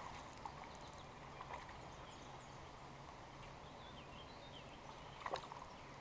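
Faint birdsong, a few short chirping notes in the middle, over the steady low hiss of a flowing creek, with a couple of brief soft sounds about a second and a half in and near the end.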